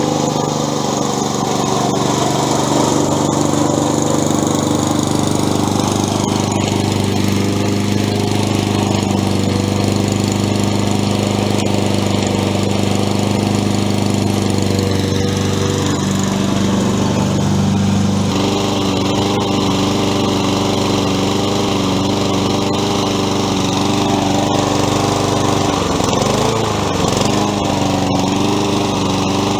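Honda engine of a Toro Model 20382 Personal Pace walk-behind mower running steadily. Its pitch shifts about halfway through and wavers briefly near the end. The engine is surging slightly, which the owner suspects comes from a little stuff in the carburetor after the mower sat unused.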